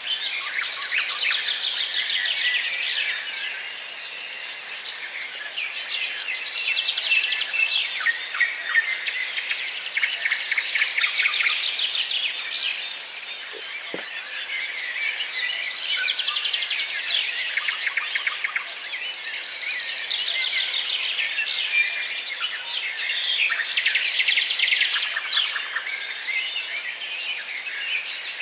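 Many small birds chirping and twittering at once, a dense overlapping chatter of quick high calls and trills that swells and eases every few seconds.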